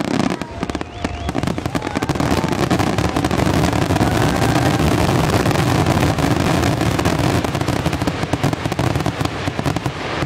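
Fireworks grand-finale barrage: many shells bursting in quick succession, a dense, unbroken stream of rapid overlapping bangs.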